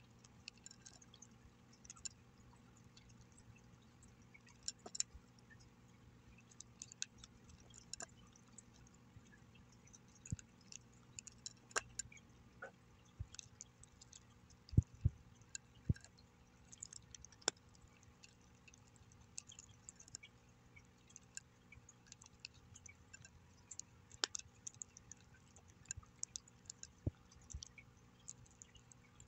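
A cat chewing dry kibble: faint, irregular crisp crunches and clicks, with a few louder crunches about halfway through.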